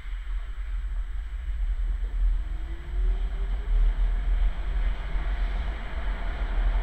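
Tram running along its track, heard from inside the car: a steady low rumble under running noise, with a faint whine that rises in pitch a couple of seconds in.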